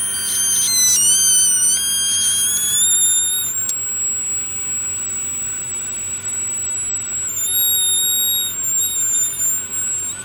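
High-pitched squealing from a thin plastic pry card dragged through the adhesive between a Samsung Galaxy S7 edge's screen and its middle frame, several thin tones that jump in pitch, hold, then jump again. It stops near the end, leaving a steady low machine hum.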